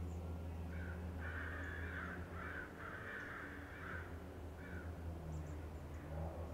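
A bird calling: a run of about six harsh calls between about one and five seconds in, over a steady low hum.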